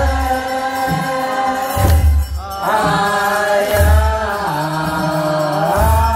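Ethiopian Orthodox liturgical chant: voices singing a slow hymn together in long held, gliding notes, with a deep drum struck about every two seconds.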